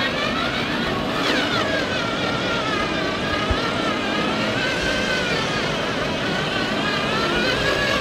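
Radio-controlled scale off-road truck driving, its electric drive whining in several tones that rise and fall with the throttle.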